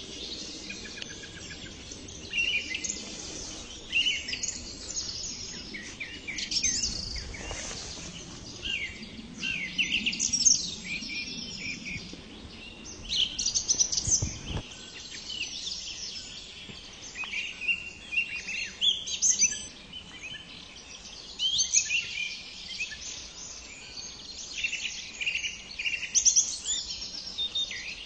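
Song thrush singing: short phrases of high, varied notes, one after another with brief pauses between them.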